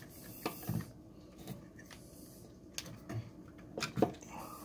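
Irregular small clicks, taps and scrapes of fingers handling stiff house wiring and plastic twist-on wire connectors (Marrettes) in an outlet box, as the wires are disconnected.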